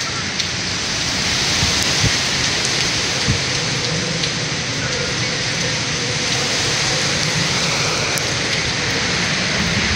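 Hurricane rain falling hard and steadily, with a couple of faint knocks.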